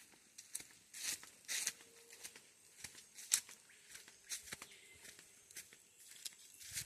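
Irregular rustling and crackling, a scatter of short dry clicks and scrapes, one sharper snap about a third of the way in.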